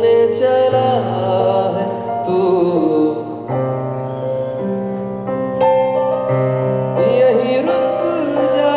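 Live music: a man singing long, wavering held notes over piano chords, with the low notes changing about every three seconds.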